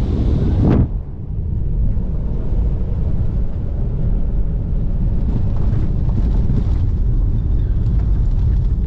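Lexus RX SUV driving off road on a dirt track: a steady low rumble of tyres and suspension. For just under the first second a brighter rushing noise sits over it, then cuts off abruptly.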